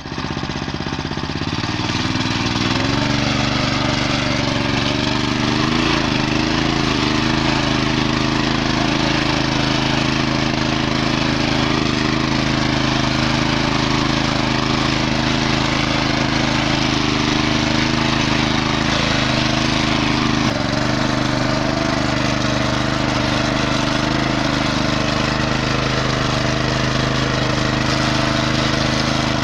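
Engine of a VARI tractor running steadily under load as it pulls a plow through the soil. Its pitch rises over the first couple of seconds, then holds even.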